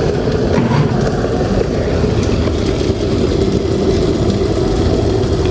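Kettle heating water, a steady rumble.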